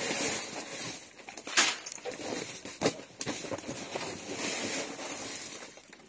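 Dry pig feed rustling and pouring in a hand scoop over a plastic bucket, with paper feed sacks crinkling. There are two sharp knocks, about one and a half and three seconds in.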